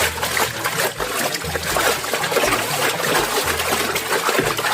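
Water running in a steady trickle over a toy as it is washed clean.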